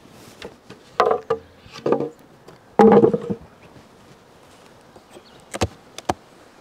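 Wooden beehive boxes and equipment being handled: three heavy hollow knocks and scrapes in the first half, then two sharp clicks near the end, with bees buzzing faintly.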